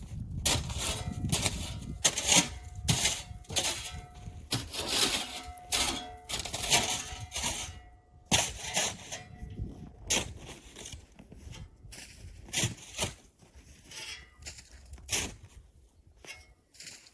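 Hand work on an axe: a series of irregular scraping and rubbing strokes, about one or two a second with short pauses, with a faint ringing tone at times.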